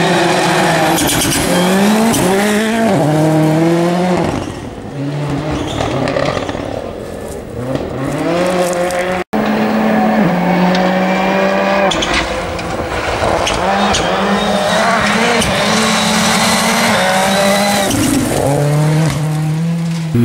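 Ford Fiesta R5 rally car's turbocharged four-cylinder engine accelerating hard. The note climbs through the revs and drops back at each gear change, over and over, with tyres squealing. It cuts off sharply about nine seconds in, then carries on.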